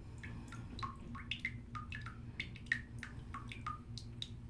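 Small watery plinks and pops, irregular and at varying pitches, in a filled bathtub where a bath bomb is fizzing, over a low steady hum.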